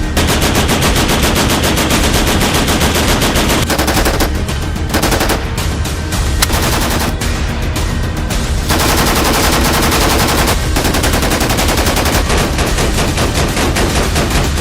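PKM machine gun firing 7.62×54mmR from the shoulder in long bursts of rapid shots, with a few brief pauses between bursts.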